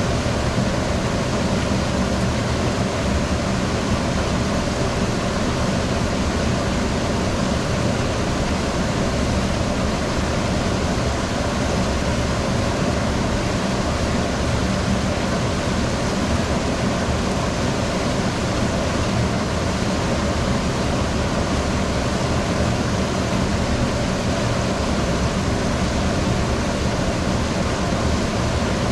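Steady rushing of water flowing through a laboratory flume, with a constant low hum underneath and no change throughout.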